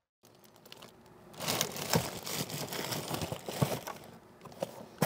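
Rustling and crinkling with irregular small clicks and knocks as gear is handled in a bass boat's deck. It begins about a second and a half in, after a brief silence.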